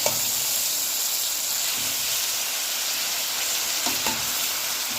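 Shredded cabbage going into a pot of hot oil with frying potatoes, onions and garlic, sizzling and hissing with steam; the sizzle jumps up as the cabbage goes in. A couple of light knocks sound near the start and about four seconds in.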